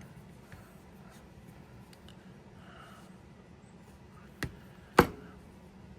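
Two sharp clicks about half a second apart near the end, the second louder, as small ratchet parts are handled at the bench, over a low steady hum and a few faint ticks.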